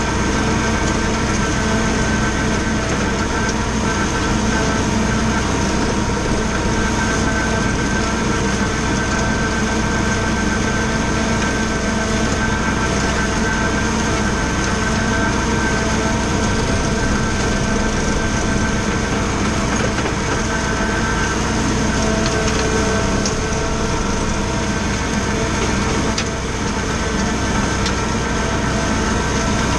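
Valtra A93 tractor's diesel engine running steadily under load, with the Agrimaster KP 2600 flail mower spinning and chopping tall grass.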